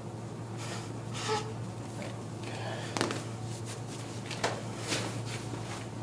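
Handling noise from hands-on trigger-point work on the neck and shoulders: soft rustles against skin and clothing and a few short sharp clicks, the loudest about three seconds in, over a steady low room hum.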